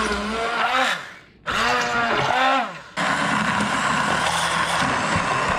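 Hand-held immersion blender pureeing raw chicken livers in a plastic bowl. It runs in short bursts, its motor pitch dipping and rising as it bites into the chunks. From about three seconds in it runs continuously with a steadier whir as the liver turns to purée.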